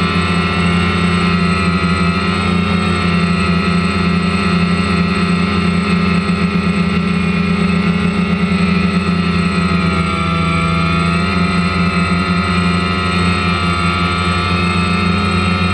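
DJI Phantom quadcopter's motors and propellers running steadily in flight, picked up by the GoPro on board: a loud, even whine made of several tones that drift slightly in pitch now and then as the throttle changes.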